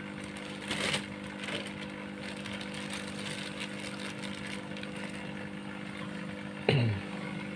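A steady motor hum with a low buzz, broken by a short rustle about a second in and a brief sound that drops in pitch near the end.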